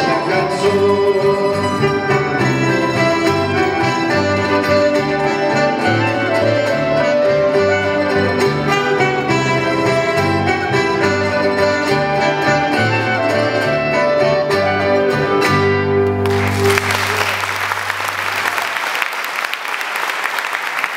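Small band of acoustic guitars, electric bass and saxophone playing the closing bars of an instrumental passage. The music stops about sixteen seconds in, a low bass note rings on briefly, and applause follows.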